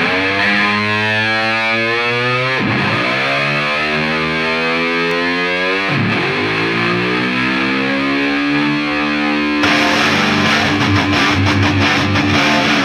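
Distorted electric-guitar rock music: long held chords that swoop in pitch twice. About ten seconds in, a driving beat with drums comes in.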